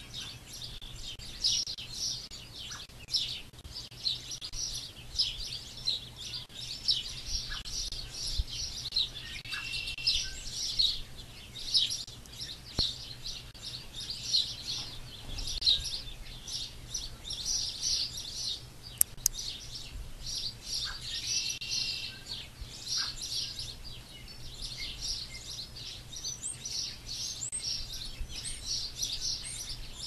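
Many small birds chirping continuously in quick, high notes, with an occasional longer call standing out.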